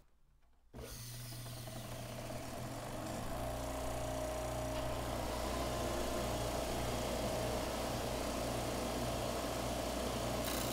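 Homemade disc sander driven by a 3/4 horsepower furnace motor, switched on about a second in and spinning up over a few seconds to a steady hum. Under it runs the steady rush of a shop vac pulling dust from the disc's shroud.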